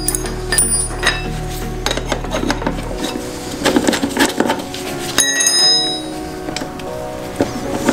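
Background music with chiming, bell-like notes, over scattered light metallic clicks from a chain riveting tool being worked on a chain's master link.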